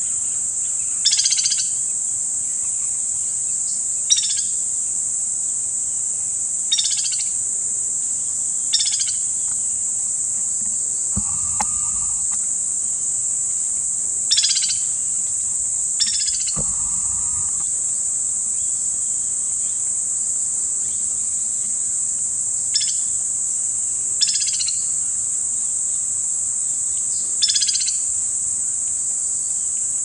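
White-naped woodpecker giving about ten short, trilled calls at irregular intervals of a few seconds, over a steady high-pitched insect drone.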